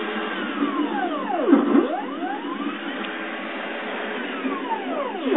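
Stepper motor of a CNC milling machine driving one axis back and forth under a test program. Its whine falls in pitch as the axis slows to a stop and reverses, then rises as it speeds up again, about a second and a half in and again near the end.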